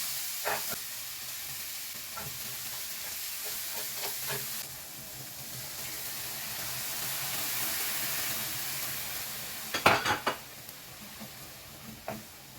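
Food sizzling as it fries in a pan, stirred with a utensil that knocks against the pan now and then, several times in a quick cluster about ten seconds in.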